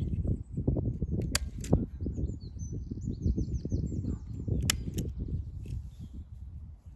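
Four sharp clicks, in two pairs, over a constant low rumble, with a small bird singing a quick run of high chirps in the middle.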